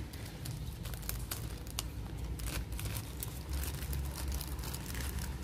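Soft plastic wrapping being peeled and pulled open, crinkling with a run of small crackles, over a steady low background rumble.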